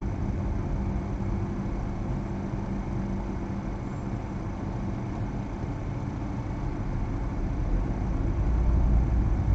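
Steady low engine rumble heard from inside a car's cabin among heavy trucks at low speed, growing louder near the end.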